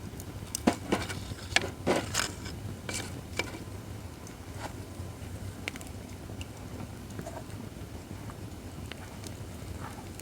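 Acacia firewood burning in a fire-pit stand, crackling and popping. A run of loud pops comes in the first few seconds, then sparser crackles over a low steady rumble.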